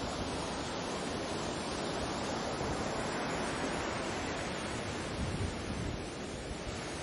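Sea surf, a steady rushing wash of waves, with wind rumbling on the microphone.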